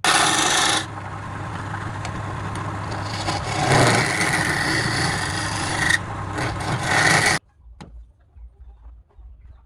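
Wood lathe running, with a tool rubbing and scraping against the spinning wood and a steady motor hum underneath. It starts abruptly and cuts off suddenly about seven seconds in.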